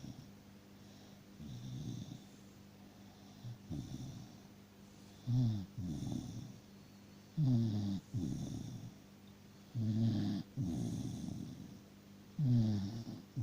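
Dachshund snoring in deep sleep: a rhythmic snore about every two seconds, each breath in falling in pitch and followed by a softer breath out. The snores grow louder from about five seconds in.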